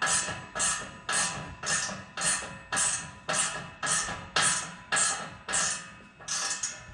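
Background music with a steady percussive beat, just under two beats a second.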